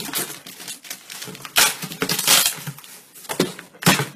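A large cardboard box being opened and rummaged through by hand: irregular rustling, crinkling and scraping of cardboard and packing, louder in the middle, with a few sharp knocks near the end.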